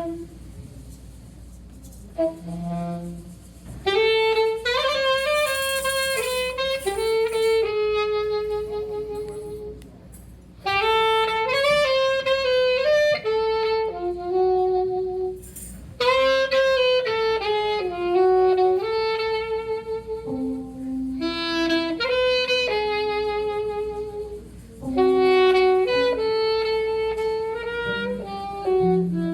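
Solo saxophone playing a slow melody in several phrases with short pauses between them.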